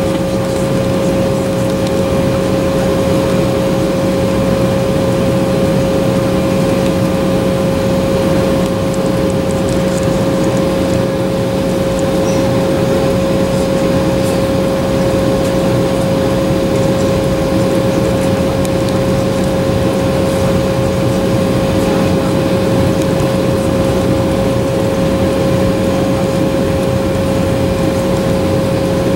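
Embraer 190's GE CF34-10E turbofan engines heard from inside the cabin, running at a steady idle: a constant whine over a low hum with no change in pitch.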